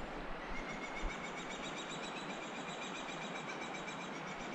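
A bird calling in a rapid, even trill of high notes, starting about half a second in and carrying on, over a steady rush of flowing river water.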